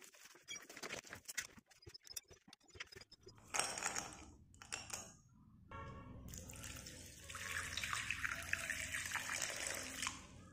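Water pouring steadily into a bowl of slate pencils and splashing over them, starting about halfway through. Before it come scattered light clicks and knocks.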